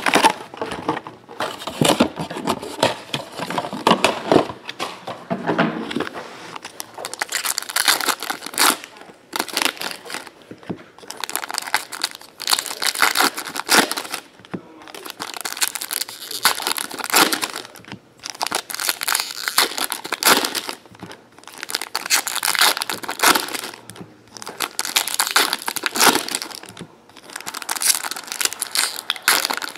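Foil trading-card packs being handled, then torn open and crinkled one after another. The crinkling comes in repeated bursts of a second or more, every couple of seconds.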